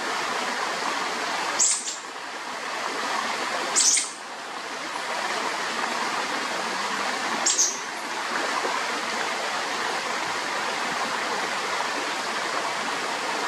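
Steady rush of flowing water from a stream. Three short, sharp, high-pitched chirps stand out above it, spread through the first eight seconds.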